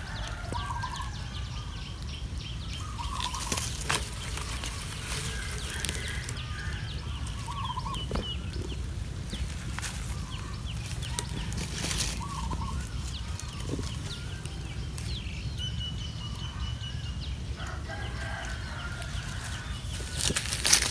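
Short animal calls, repeated about every two seconds, over crackling and rustling of dry leaves and straw, with a steady low wind rumble on the microphone.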